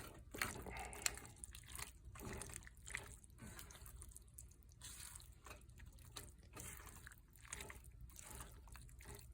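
Pasta in a cheesy sauce being stirred in a pan: faint, irregular wet squishing with light clicks of the utensil.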